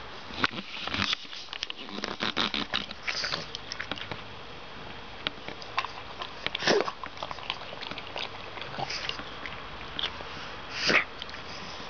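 Pug lapping water from a stainless steel bowl: quick wet laps, dense in the first few seconds and sparser later, with two louder slurps about halfway and near the end.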